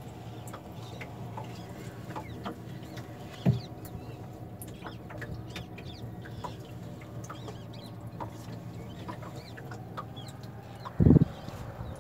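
Bird calls, a mix of short clucks and chirps, over a steady low hum, with two short dull knocks, one about three and a half seconds in and a louder one near the end.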